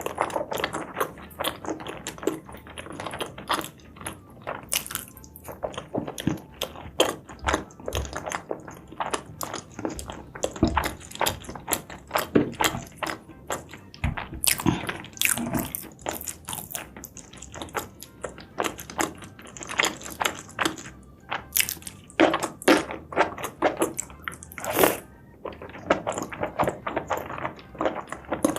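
Close-miked mukbang eating sounds: a person biting and chewing seafood and mushrooms, with a dense, irregular run of wet smacks and crunches.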